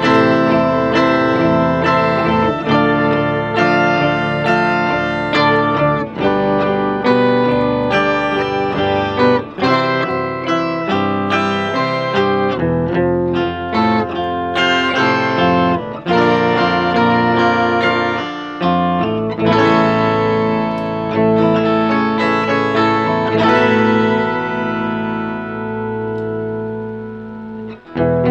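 Guitar played through an Electro-Harmonix Micro POG polyphonic octave generator, with the sub-octave and octave-up voices mixed in together with the dry signal, so each note and chord is doubled an octave below and an octave above. A run of notes and chords, with the last chord held and fading near the end.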